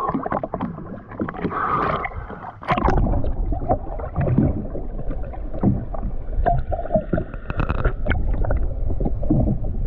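Water sloshing and splashing at the surface, then, about three seconds in, a sudden change to a muffled low rumble of water with many small clicks and bubbles, heard underwater.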